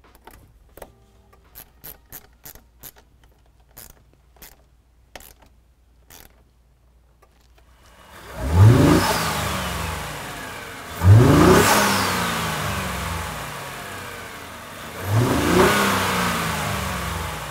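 A run of light clicks as the battery ground terminal is refitted and tightened. Then, about 8 seconds in, a Ford 3.5L EcoBoost twin-turbo V6 is revved three times through its new S&B cold air intake, each rev rising quickly and dying away slowly.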